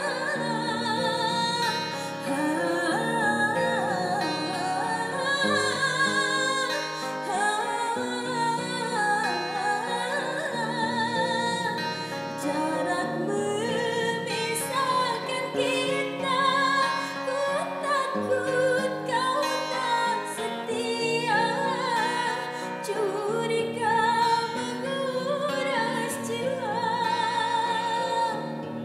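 A woman singing a slow ballad with vibrato, accompanied by an acoustic guitar.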